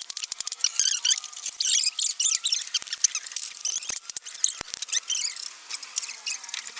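Hands working a plastic RC car body: irregular scratchy, squeaky scraping and rubbing, with a few sharp clicks.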